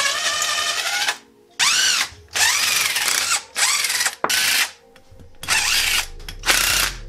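Power drill run in short bursts, about seven times, its motor whine rising and falling in pitch with each pull of the trigger.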